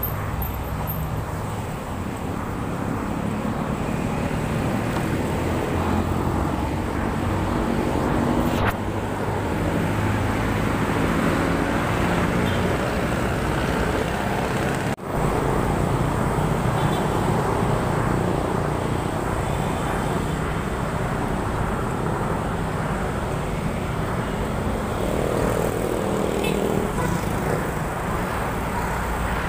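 Steady traffic noise from a busy multi-lane city road: motorcycles, cars and vans passing close by, a constant low rumble.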